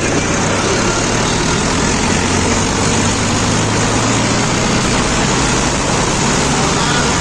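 Tractor's diesel engine running at a steady speed while the tractor drives along, with a constant low hum under a broad noise.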